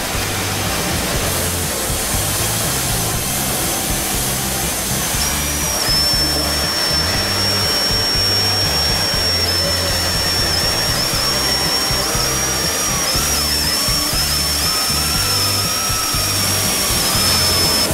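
Cordless drill driving a 2-inch hole saw through the bottom of a diesel truck's fuel tank. The cutting gives a high steady whine that starts to waver about halfway through as the saw bites, heard over background music with a steady beat.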